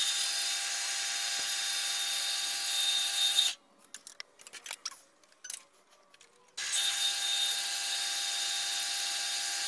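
Horizontal metal-cutting band saw running steadily with a whine and hiss as it cuts a metal rod. It stops about three and a half seconds in, leaving a few light knocks as the work is handled, then starts again about three seconds later for the next cut.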